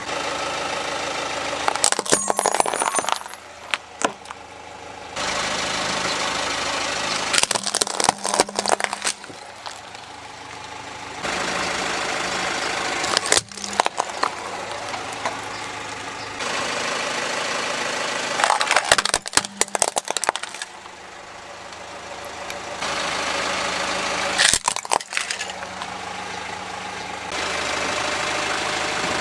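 Car tyre rolling over small toys and crushing them, each time a cluster of sharp cracks and snaps, about five times, over the car's engine running at idle.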